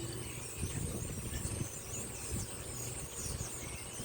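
Outdoor ambience: a steady low mechanical hum with bird chirps and a thin, steady high insect buzz over it, and a few soft low bumps.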